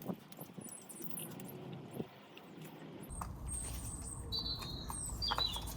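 Small birds chirping in the background: a few short, high, whistled notes, some falling in pitch, in the second half, among scattered light clicks. A steady low rumble comes in about halfway.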